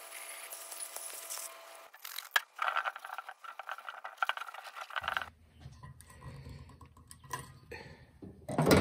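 A garden hose spray nozzle hissing as water sprays onto a steel mower rim, cutting off about two seconds in. A cloth towel then rubs and scrubs against the rim for about three seconds, followed by light clicks and scrapes as the rim is handled, with one louder knock near the end.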